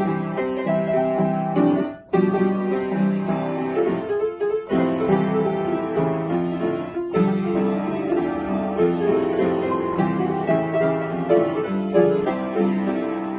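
Upright piano being played, a steady stream of notes that breaks off briefly about two seconds in.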